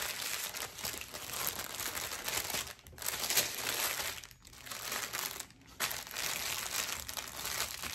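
Clear plastic bag crinkling as hands slide packets of diamond-painting drills into it, with a few brief pauses.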